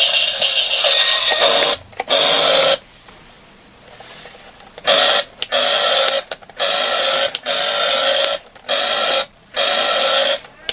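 Small electric motors and plastic gears of a toy RC transforming robot car whirring in short runs, starting and stopping again and again, with a longer pause about two seconds in.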